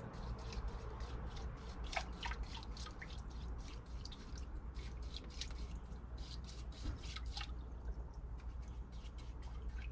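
Water dripping: irregular single drops, a few falling in quick runs, over a low steady hum.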